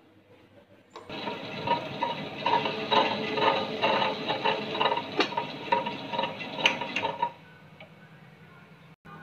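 Table-top wet grinder running for about six seconds, its stone roller rattling in the steel drum at about three knocks a second, starting and stopping abruptly.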